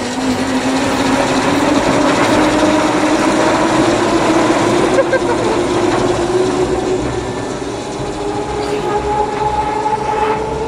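Zip-line pulley trolley running fast down the steel cable, a whirring whine that rises in pitch over the first several seconds as the rider picks up speed, then fades.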